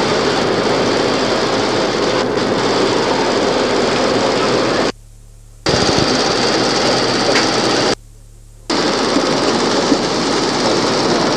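Loud, steady mechanical noise that cuts out abruptly about five seconds in and again about eight seconds in, each time coming back under a second later; only a faint low hum remains in the gaps.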